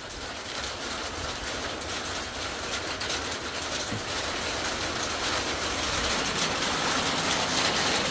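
Steady rain: an even hiss with faint patter that grows gradually louder.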